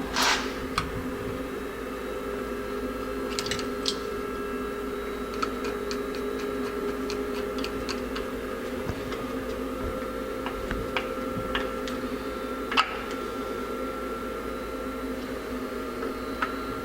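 Light clicks and taps of a screwdriver and small metal carburetor parts being handled, over a steady hum. A short scrape comes just after the start, and a sharper click comes about two-thirds of the way through.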